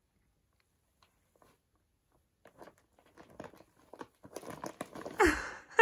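Brown kraft wrapping paper rustling and crinkling in scattered, growing bursts as a cat paws and bites at a wrapped present. A short voice-like sound, the loudest thing, comes near the end.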